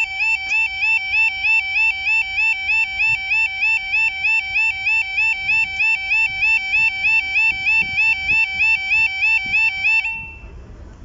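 Level crossing yodel alarm sounding a warbling two-note tone that repeats about three times a second, while the barriers are down and the road lights flash. It cuts off suddenly about ten seconds in.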